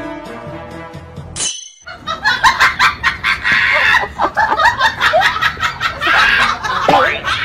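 Background music that breaks off about one and a half seconds in, followed by rapid, choppy laughter over music.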